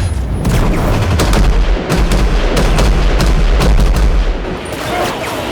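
Film gunfire: a rapid, irregular run of gunshots, several a second, over a heavy low rumble.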